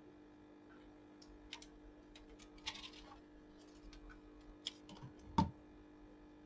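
Light plastic clicks and taps as a clip-on BIOS programmer adapter and its ribbon cable are unplugged from a laptop motherboard and set down on the bench, with a sharper knock about five seconds in. A faint steady hum sits underneath.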